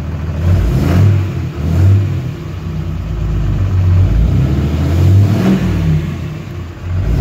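2012 Ram 3500's 6.7-litre Cummins turbo-diesel straight-six running and revved in several short throttle blips, rising and falling. The owner credits a newly fitted AirDog lift pump for a smoother idle and better throttle response.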